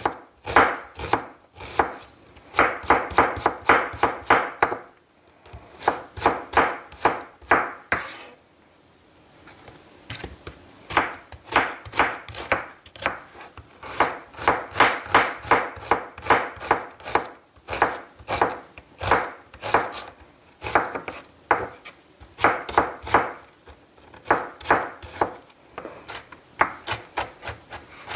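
Chef's knife chopping a white onion on a wooden cutting board: quick, even knife strikes, about four a second, in runs with a pause of a few seconds near the middle.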